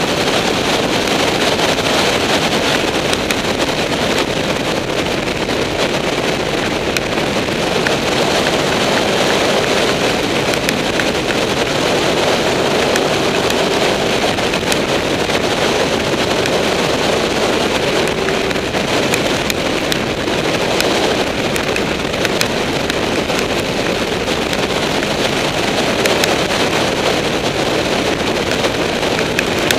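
Steady wind rush over the microphone of a Honda VFR800 motorcycle riding at speed, with its V4 engine running underneath as a drone.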